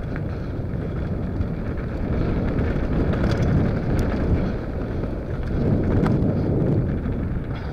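Wind rushing over an action camera's microphone as a mountain bike descends a dirt trail at speed, with steady tyre rumble and a few sharp clicks and knocks from the bike, the clearest about four and six seconds in.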